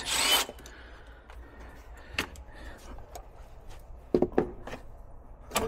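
A few light, scattered knocks and clicks, as of parts being handled, with a short breathy hiss at the very start.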